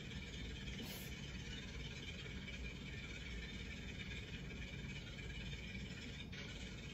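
Steady low background hum of a quiet room, with one faint click near the end.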